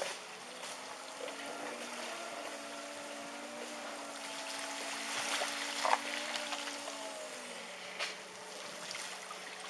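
Car horns sounding steadily on their own in the flood: several overlapping held tones, one of them dropping out about seven and a half seconds in. Under them runs the rush of floodwater, with a couple of short knocks about six and eight seconds in.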